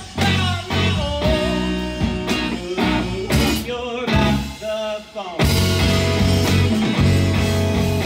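A live rock trio playing: electric guitar, electric bass and drums, with a lead vocal over them. The band thins out briefly around five seconds in, then the full band comes back in.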